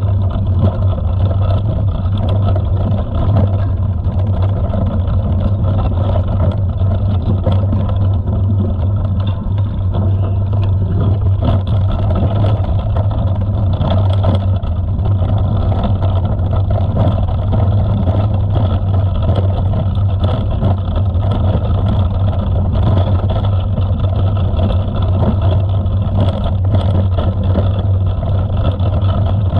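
Steady rumble of a mountain bike riding over a dirt trail, wind buffeting the action camera's microphone and tyres running on loose ground, with small knocks and rattles from the bumps.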